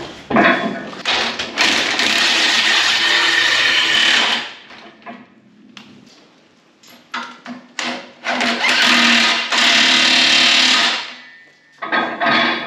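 Handheld electric power tool running in two bursts of about three seconds each, fading off at the end of each, with a few short knocks between them.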